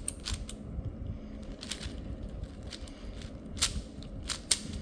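Plastic puzzle cube being twisted by hand. Its layers make irregular clicks and clacks, a few louder snaps among them, and the cube is stiff to turn.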